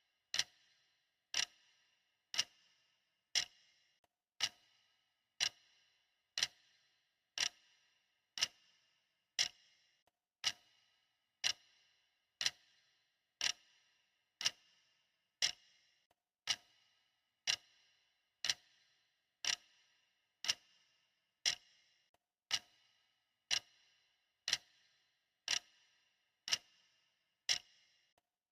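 Clock ticking steadily, one sharp tick about every second, each with a brief ringing tail.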